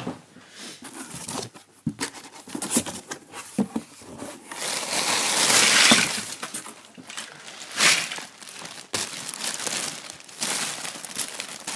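Packaging crinkling and rustling as it is handled by hand, in uneven bursts with a longer stretch of steady rustling about five seconds in.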